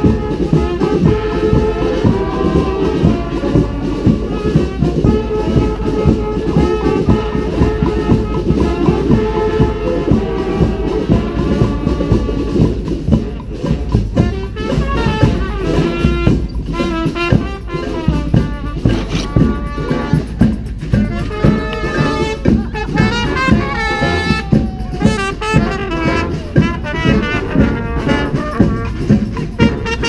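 Street brass band playing a cumbia: trumpets and other horns carry the tune over a steady drum beat.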